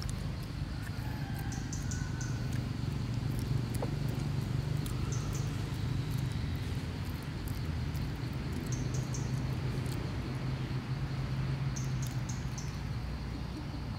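Outdoor forest ambience: a steady low rumble with short, high-pitched chirps coming in small clusters several times.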